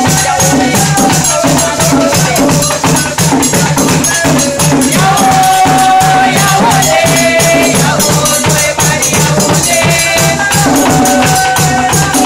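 Afro-Surinamese apinti drumming: tall hand-played drums and sticks beating a wooden box (kwakwa) in a dense, even rhythm, with a group singing a wavering melody over it.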